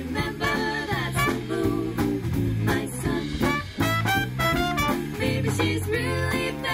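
Live swing band playing: saxophones, trombone, guitar, electric bass and drums, with three women singing together over it.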